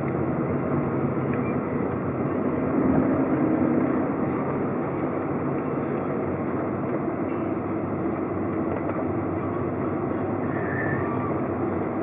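Car engine and tyre noise as the car drives along a town road, a steady drone that swells briefly about three seconds in.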